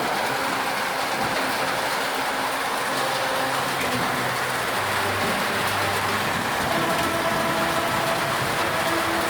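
Heavy thunderstorm downpour: a steady, loud wash of rain noise that does not let up, with faint low humming tones underneath.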